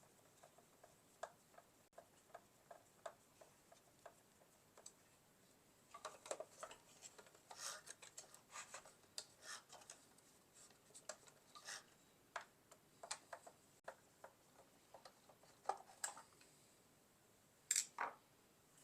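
Faint, scattered small clicks and scrapes of a screwdriver on small screws and the plastic housing of a Roomba i7 robot vacuum being handled during disassembly, with two sharper clicks near the end.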